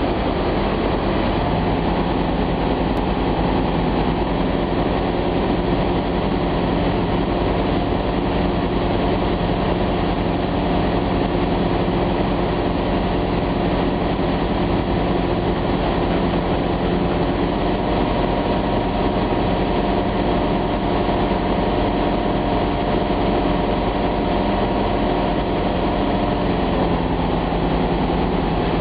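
Cabin drone of a Flight Design CTsw light sport aircraft's Rotax 912 flat-four engine and propeller at approach power, with rushing air noise. The engine note shifts slightly near the end.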